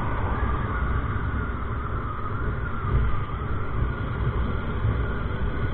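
TVS Apache RTR 160's single-cylinder engine running at road speed, under a steady heavy rush of wind on the bike-mounted microphone.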